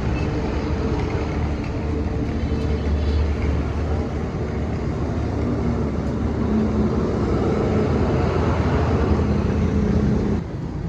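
An engine or motor running steadily with a low hum and a few pitched tones that drift slightly. The level drops suddenly near the end.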